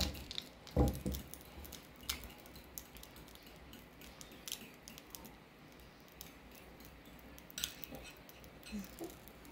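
Metal spoon stirring in a small ceramic bowl, clinking against its side a few times at irregular moments, with a soft thump just under a second in.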